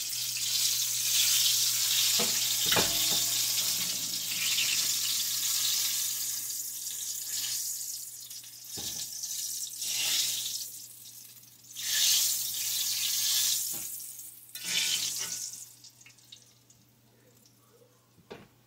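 Hot oil sizzling as turnovers deep-fry in a cast iron skillet. The sizzle swells again several times as the pastries are turned with tongs, then fades away near the end.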